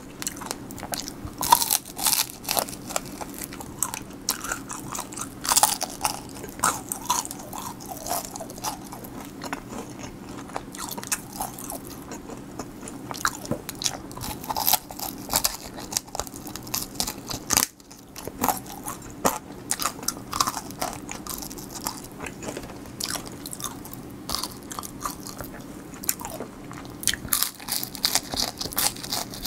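Close-miked biting and chewing of crispy honey butter garlic fried chicken: a steady run of sharp crackling crunches with wetter chews between them.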